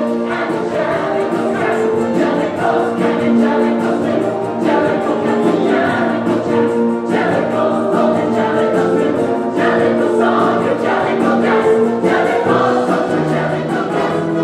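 A stage-musical chorus singing together over an instrumental accompaniment with a steady beat.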